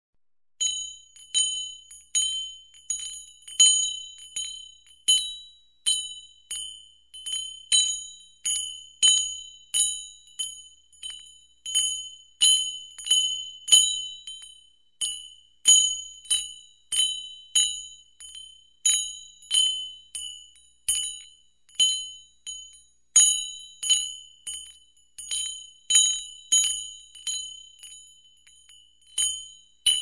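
Small bell rung over and over, about two strikes a second with uneven force. Each strike is a bright, high ting that dies away quickly.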